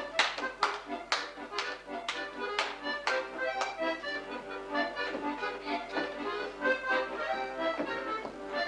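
Accordion music playing a melody with chords, with sharp taps about twice a second during the first three to four seconds.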